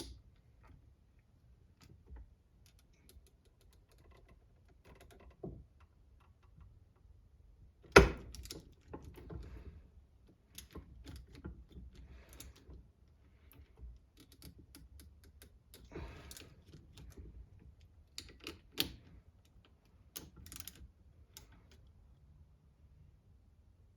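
Small hand tools and metal parts clicking and clattering at irregular intervals while an RC car is taken apart with a socket driver, with one loud sharp clack about eight seconds in.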